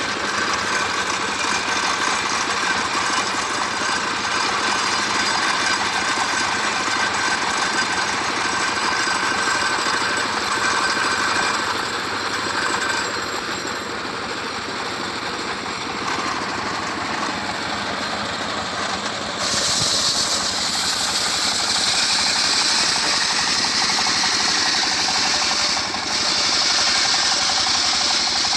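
Stationary engine of a homemade circular sawmill running steadily, with the saw blade spinning free and not cutting. About two-thirds of the way through, a brighter hiss comes in suddenly and stays.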